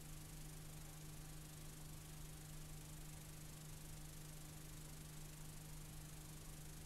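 Faint steady hiss with a constant low hum: the noise of a blank stretch of videotape after the recording ends.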